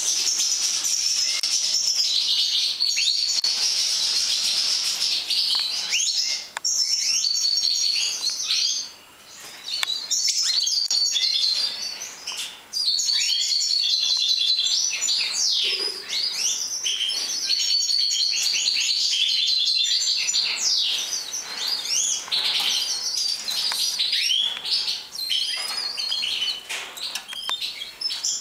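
Caged European goldfinches of the large 'major' type singing: a continuous high twittering of chirps, trills and quick glides that breaks off briefly about nine seconds in and again near thirteen seconds.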